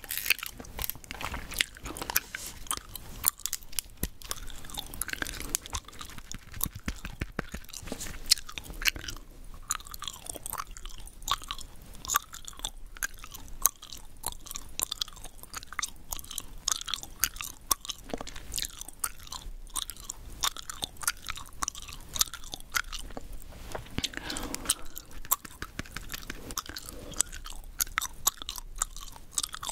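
Chewing gum being chewed right up against the microphone: a continuous, irregular run of sharp clicks and smacks several times a second.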